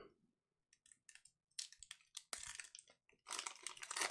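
Trading cards being handled and flipped through: faint scattered clicks and brief rustles of card stock, starting about a second in and coming in clusters.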